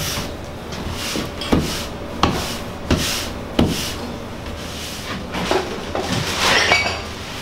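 Cleanup work on a bare floor: a long-handled cleaning tool knocking and scraping, with a run of sharp wooden knocks about two-thirds of a second apart. Near the end comes a longer spell of rubbing and rattling.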